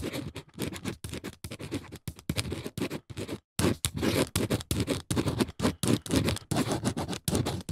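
Pen scratching out drawing strokes, many quick scratchy bursts one after another, with a brief pause about three and a half seconds in.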